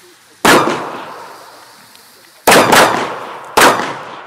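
Four sharp bangs of Funke Blauer Berber 1.5 g black-powder F2 firecrackers: one about half a second in, two in quick succession around two and a half seconds, and one more about a second later. Each bang trails off in an echo.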